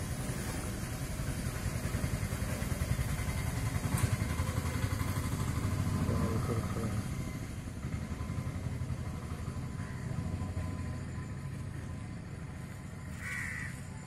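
Low engine rumble of a passing motor vehicle, growing louder through the first half and then fading away.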